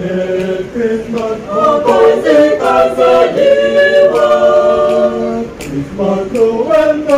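Unaccompanied singing: several voices in harmony, a cappella choir style, with long notes held through the middle.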